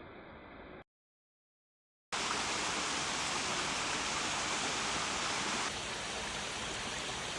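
Waterfall pouring: a steady rushing of water that cuts in sharply about two seconds in after a moment of silence, and drops a little in level near the end.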